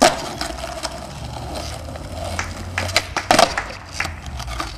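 Skateboard on concrete and tarmac: a hard clack of the board landing at the start, the wheels rolling with a rumble, then two loud sharp board clacks about three seconds in and a lighter one shortly after.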